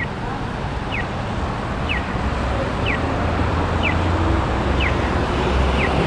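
Traffic on a wet street with wind on the microphone, and a short falling electronic chirp about once a second from an accessible pedestrian crossing signal.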